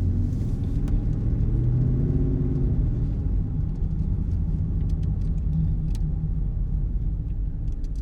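Dodge Charger R/T's 5.7-litre Hemi V8, breathing through a newly fitted aFe cold air intake, running at low speed on the road with a steady low rumble. The engine pitch lifts slightly and settles back about two seconds in.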